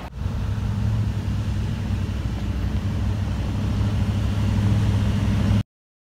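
Pickup truck driving on a sandy dirt farm track, its engine running with a steady low hum that grows slightly louder as it approaches. The sound cuts off suddenly near the end.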